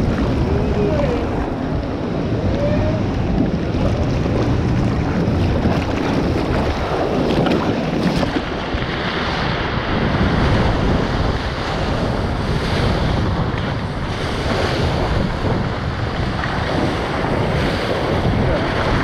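Rushing, churning water of a breaking wave-pool wave around a surfboard as it is ridden, with wind buffeting the camera microphone. A steady, loud, noisy rush.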